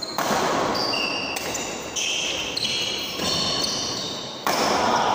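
Badminton rally: a racket strikes the shuttlecock four times at a rally's pace, each hit echoing in the hall, with short high squeaks of sneakers on the court floor between them.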